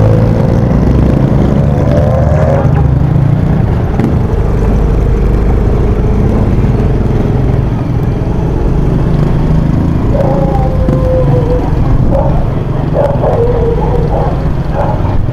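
Motorcycle engine running at low riding speed, with wind rumble on the handlebar-mounted microphone. A few short pitched sounds come in about two-thirds of the way through and again near the end.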